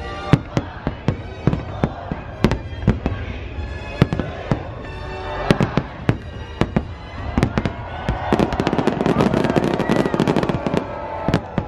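Fireworks shells bursting in a quick string of sharp bangs over show music, thickening about eight seconds in into a louder run of rapid crackling pops.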